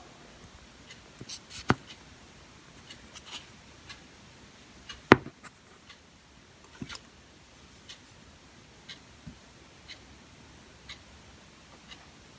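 Scattered small clicks and taps in a quiet room, with one sharp, loud click about five seconds in. In the second half, faint ticks come about once a second.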